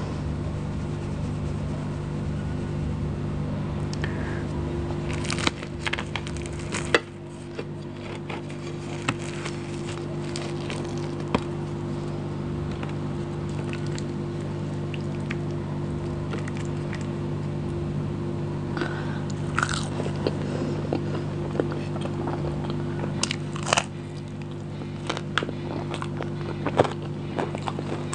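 Close-miked eating by hand: biting, chewing and crunching mouthfuls of biryani, curry and bread, with many sharp mouth clicks and crackles over a steady low hum.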